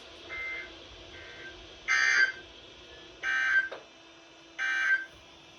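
Emergency Alert System end-of-message on a NOAA Weather Radio receiver: three short warbling SAME data bursts, each under half a second and about 1.3 s apart, marking the end of the warning. Fainter bursts of the same data tones sound near the start.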